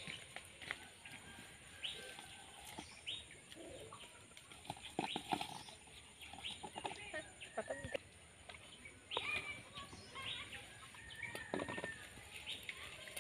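Blue nylon mesh net rustling and crackling as wood apple pulp is squeezed and worked through it over a steel bowl to strain out the seeds, with a few faint bird chirps.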